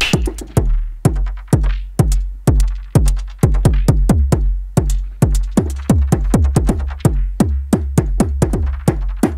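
Arturia SynthX V software synthesizer playing a sequenced electronic pattern: a quick, steady run of punchy percussive hits, about four a second, over a deep bass line that shifts in pitch.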